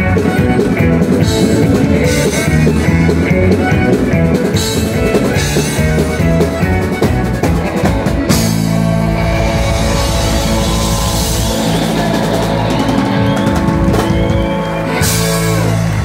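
Live country band playing: fiddle, electric and acoustic guitars, bass and drums. About eight seconds in the band moves into long held chords with cymbals, which break off near the end as the song closes.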